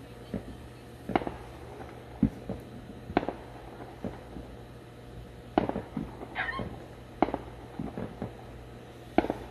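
Distant aerial fireworks going off: a string of sharp bangs at irregular intervals, roughly one a second, with a brief crackle a little past the middle.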